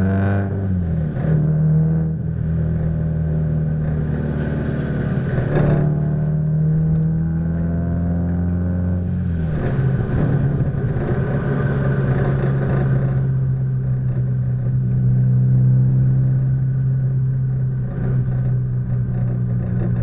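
Subaru Impreza WRX STI's turbocharged flat-four running through an A.R.T. titanium aftermarket exhaust while the car is driven, a steady deep drone muffled by the camera's waterproof case. Its pitch drops about a second in and again about halfway through, then holds steady.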